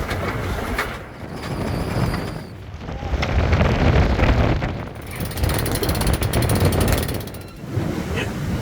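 Wind gusting over the microphone aboard a sailing boat: a loud rushing noise with a heavy low rumble that swells and eases in surges every couple of seconds.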